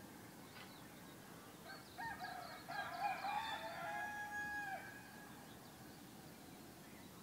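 A rooster crowing once, starting about two seconds in: a call of about three seconds that ends on a held note before breaking off. A faint steady background hum runs beneath it.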